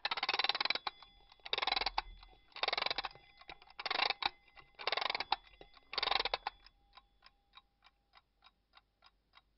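Clock ticking sound effect. Six loud swishing bursts come about once a second over the first six seconds, then the ticking runs on alone, about two or three ticks a second, growing fainter.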